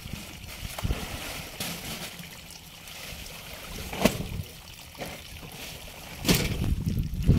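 Muddy water sloshing and splashing as men wade knee-deep in a flooded ditch, with a few short knocks, the loudest about six seconds in.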